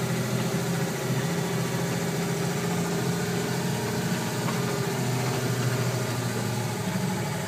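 Farm tractor's engine running steadily at a constant speed, with an even low hum.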